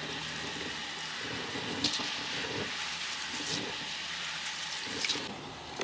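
Hands rubbing and swishing soaked rice grains in water in a large stainless steel bowl, a light hand-rub before cooking. Wet swishing over a steady hiss, with a few sharper splashes about two, three and a half and five seconds in.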